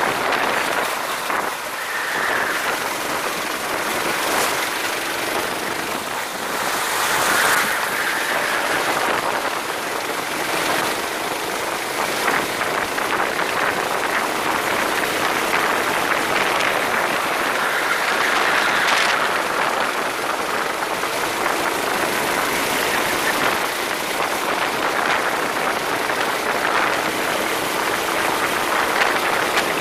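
Racing kart at speed: a steady rushing noise of wind and the running kart, with the sound swelling now and then.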